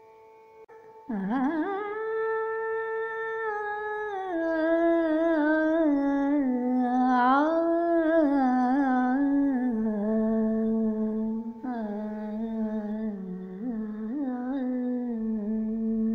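A woman humming a slow, wordless melody with wavering ornaments over a steady drone note. The drone sounds alone for about a second, then the voice enters and gradually sinks to a lower pitch.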